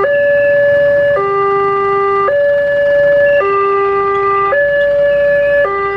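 Electronic level-crossing warning alarm of a Wantech railway crossing, sounding a steady two-tone pattern that switches between a higher and a lower tone about every second and a bit. It keeps sounding while the boom barrier lifts.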